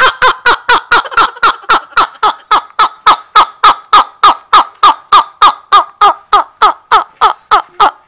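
A man laughing hard and uncontrollably: a long, unbroken run of short, high, falling bursts, close to four a second.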